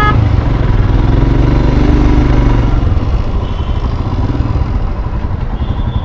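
Royal Enfield Himalayan BS6's single-cylinder engine running at low speed in slow, crawling traffic, a steady low rumble.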